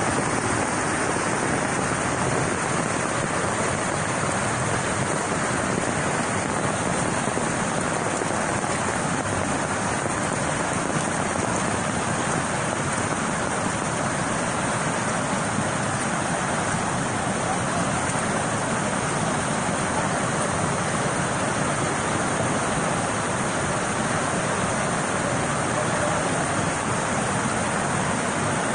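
Heavy storm rain falling in a steady, even rush with no break.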